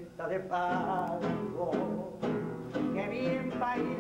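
A tango played on several acoustic guitars, with a man singing over them.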